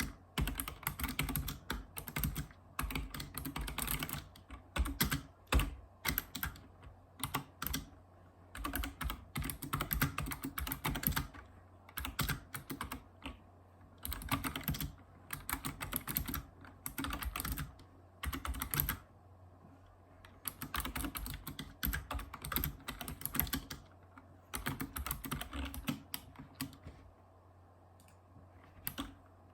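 Typing on a Razer Ornata Chroma mecha-membrane keyboard: runs of rapid keystrokes with short pauses between them.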